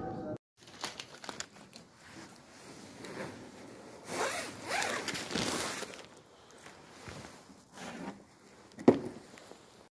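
Close scratching and rustling with a few quick zip-like strokes around the middle and one sharp click near the end.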